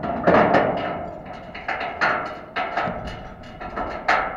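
A racehorse's hooves knocking against a metal starting-gate stall as it shifts in place: a dozen or so irregular sharp knocks, the loudest near the end.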